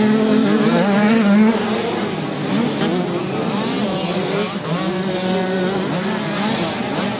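Several 65 cc two-stroke motocross bike engines racing, revving up and down with overlapping pitches that rise and fall.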